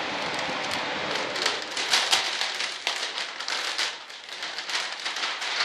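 Plastic vacuum-bagging film crinkling and crackling as it is handled, in irregular bursts, after a steady hiss for about the first second.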